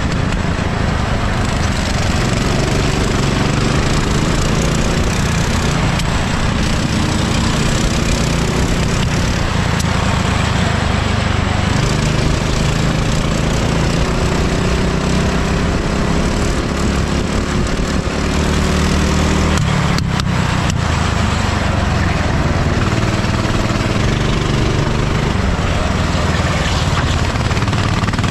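Kart engine running hard at racing speed, heard onboard, its pitch rising and falling as the driver accelerates and lifts through the corners. There are a few short knocks about twenty seconds in.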